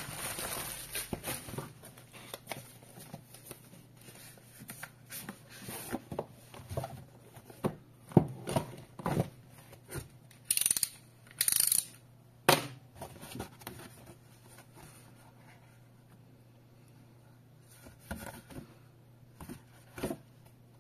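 Cardboard packaging boxes and bubble wrap being handled: a series of short knocks, scrapes and rustles of cardboard, busiest and loudest in the middle, then mostly quiet with a couple of light knocks near the end. A faint steady low hum runs underneath.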